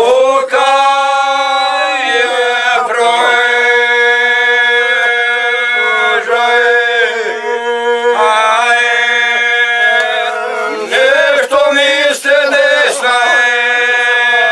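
A group of men singing a traditional Bosnian folk song unaccompanied, in long drawn-out notes over a steady low held note, sliding between notes at short breaks every few seconds.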